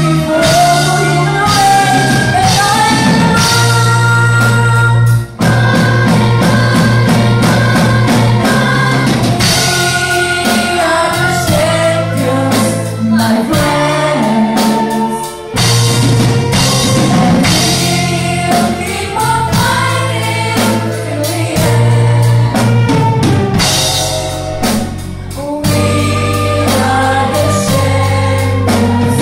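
A woman singing a song into a microphone with a string orchestra accompanying her, over sustained bass notes and a steady beat.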